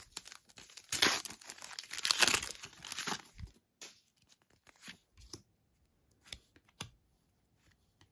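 Foil wrapper of a Match Attax trading-card packet being torn open and crinkled, in noisy bursts for about two seconds. After that come a few soft clicks as the card stack is pulled out and handled.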